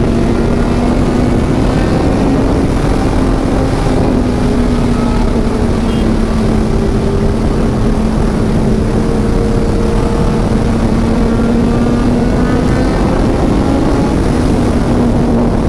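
Motorcycle engine running at a steady cruise, its drone drifting slightly up and down in pitch, over loud wind noise.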